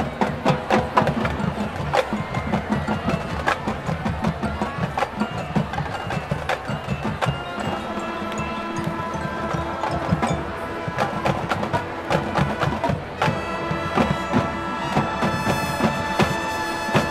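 Marching band playing: quick, sharp drum and percussion strokes with mallet percussion. About eight seconds in, sustained pitched chords come in, growing fuller and brighter from about thirteen seconds.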